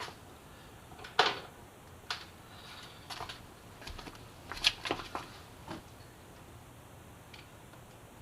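A few separate sharp clicks and light plastic rattles, the loudest about a second in and another pair near the middle, from unclipping the turn-signal wiring connector and handling the removed plastic side fairing of a Yamaha FZ6R.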